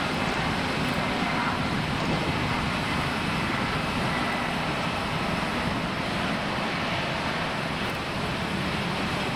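Airbus A350's Rolls-Royce Trent XWB turbofans at taxi thrust as the airliner rolls past: a steady engine rush with a faint high whine.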